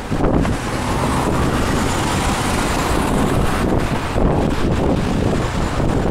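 Road traffic: several cars driving past close by, their engines and tyres making a steady noise with a low rumble.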